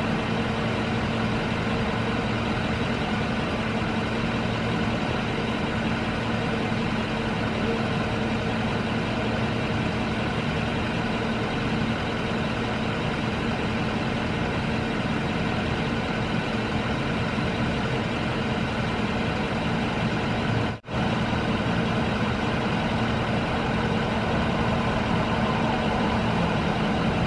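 Steady drone of idling vehicle engines, unchanging throughout, with a brief break in the sound about 21 seconds in.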